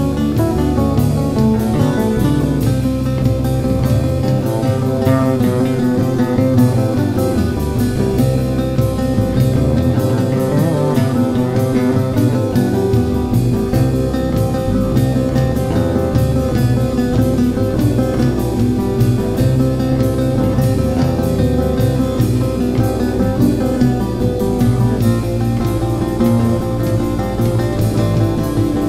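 Instrumental background music: guitar over a fretless electric bass and a drum kit keeping a steady beat.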